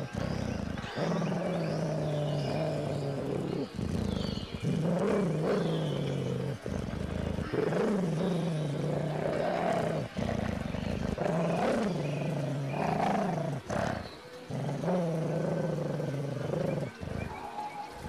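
Dog growling: long, low, rumbling growls that waver in pitch, each held for a second or more and broken by short pauses for breath.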